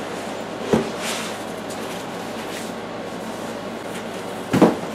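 Foam packing inserts and a cardboard shipping box being handled during unpacking: rustling and scraping, a short knock about a second in, and a louder thump near the end.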